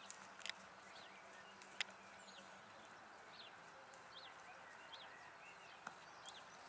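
Faint outdoor quiet with a few sharp knocks from a horse's hooves cantering on a sand arena in the first two seconds, then a bird repeating a short high chirp about once a second.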